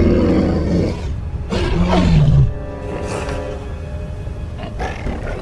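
Two loud alien creature calls from the Talz, the second sliding down in pitch and ending about two and a half seconds in, over background film music.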